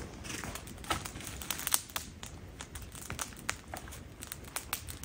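Wood campfire crackling with many sharp pops and snaps, as more wood is laid onto it.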